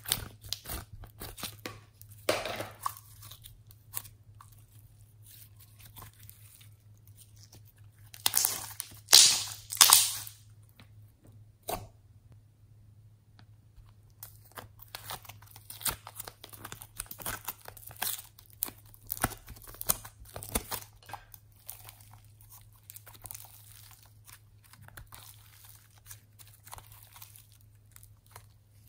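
Hands squishing, pressing and stretching homemade slime in a plastic box: sticky crackles and small pops, with a louder run of squelches around eight to ten seconds in and a brief lull a few seconds later.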